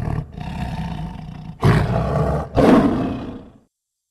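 Tiger roaring: a quieter growling call for the first second and a half, then two loud roars in quick succession before the sound stops.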